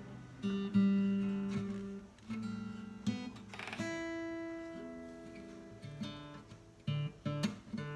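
Ukulele chords strummed and left to ring, changing chord every second or so, with a few quicker strums near the end.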